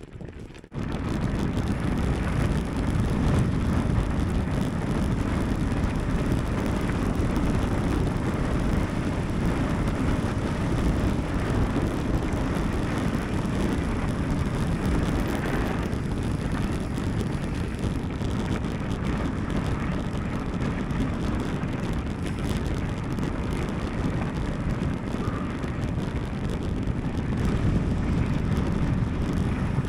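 Steady wind buffeting on the microphone and rolling tyre noise from a mountain bike being ridden, cutting in abruptly about a second in.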